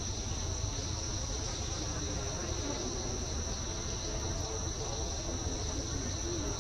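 Insects, such as crickets or cicadas, chirring in one steady high-pitched drone that never breaks, over a low rumble.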